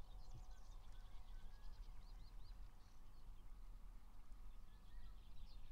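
Faint mixed birdsong from several small birds: scattered short high chirps and a few thin whistles, over a low steady rumble.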